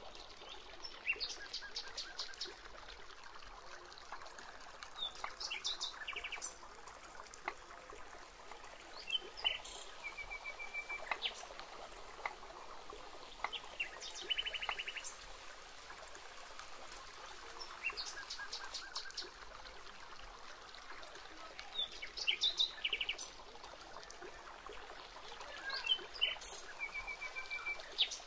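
Wild birds calling in short, rapid trills of repeated high notes that recur every few seconds over a steady faint hiss of outdoor ambience, with a few sharp taps of a knife on a wooden chopping board.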